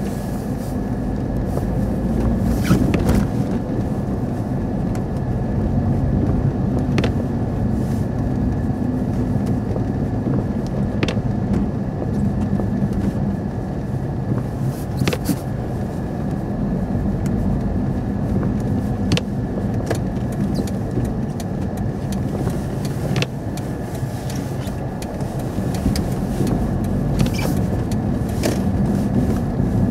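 Car driving slowly on snow-covered road, heard from inside the cabin: a steady low engine and tyre hum with scattered sharp clicks and knocks.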